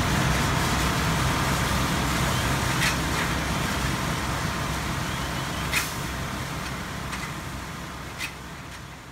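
Fire truck engine running at idle, a steady low hum with three short sharp clicks spread through it, slowly fading out.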